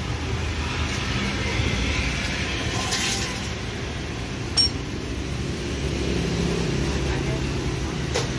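Steady low rumble of street traffic and motorbikes, with one sharp click about four and a half seconds in.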